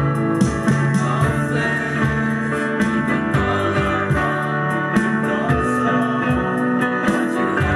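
A mixed group of young voices singing a song together, with a guitar strummed in a steady rhythm.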